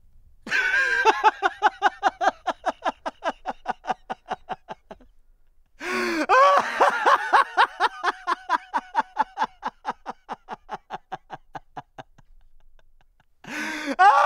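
A man laughing loudly in long bouts of rapid 'ha-ha-ha', about six pulses a second. Two long bouts are split by a short pause, and a third starts near the end.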